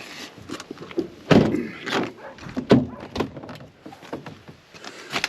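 Several clunks and thumps from a 2002 Dodge Durango's cabin doors and compartments being handled, the loudest about a second in, with rustling between.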